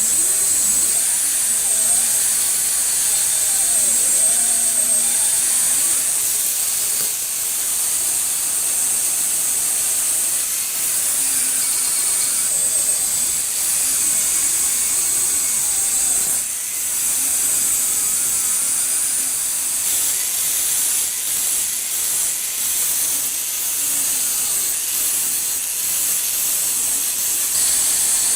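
Angle grinder abrading the rusty steel of an old axe head: a loud, steady hiss that dips briefly twice as the disc eases off the metal.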